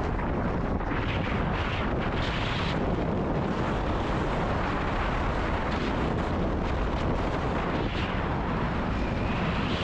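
Wind buffeting an action camera's microphone in a steady low rumble while a snowboard runs over hard, icy groomed snow. The board's edges scrape in hissing swells on the turns, a few seconds apart.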